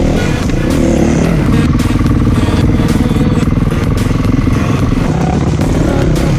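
Dirt bike engine running under the rider, its revs rising and falling as it is ridden along a rough trail, with knocks and rattles from the bike over the ground.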